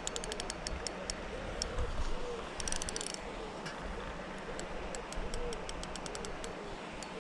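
Spinning fishing reel ticking in irregular runs of quick clicks, with a dense rattle of clicks about three seconds in. Behind it a bird repeats a short, low call over and over.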